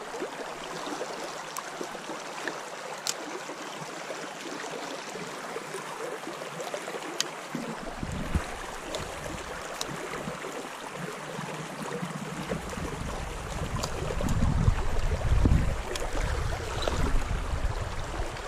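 Shallow, rocky stream running: a steady rush of water, with a few faint ticks and a low rumble that comes in over the last several seconds.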